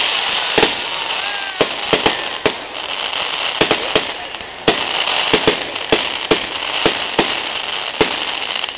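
Fireworks display: aerial shells and stars bursting in an irregular string of sharp bangs, about two a second, over a continuous hiss.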